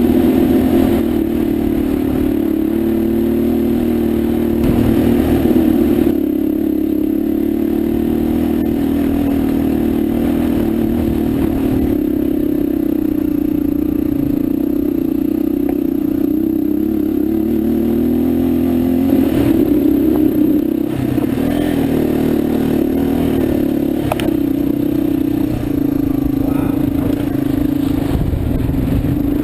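Motorcycle engine running steadily under load on a rough trail, picked up by a camera mounted on the bike, with clattering and scraping from the rocky ground underneath.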